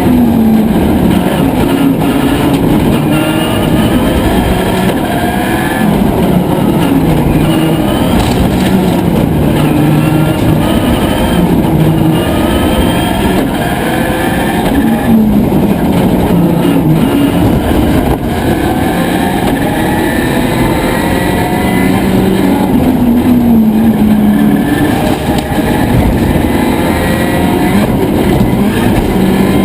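Subaru Impreza WRC's turbocharged flat-four engine at full rally-stage pace, revving up and dropping back again and again as it works through the gears and lifts for corners.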